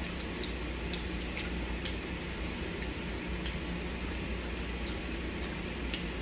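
Close-up eating sounds: chewing with small scattered mouth clicks, over a steady low hum.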